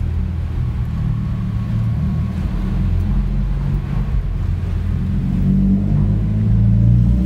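Scion FR-S's flat-four engine running just after a cold start, heard from inside the cabin as the car pulls away through a parking garage. A steady low rumble that grows a little louder about five seconds in.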